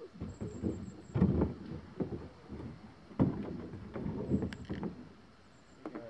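Kayak paddle strokes pulling through the water, with splashing and knocks. The two loudest strokes come about a second in and again about three seconds in, and the sound settles near the end.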